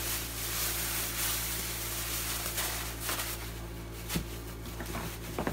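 Rustling and handling noise of bags and items being moved around, with a couple of short light knocks about four seconds in and near the end, over a steady low hum.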